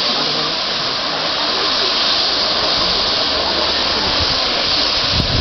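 A steady, loud hiss, with a few low thumps near the end.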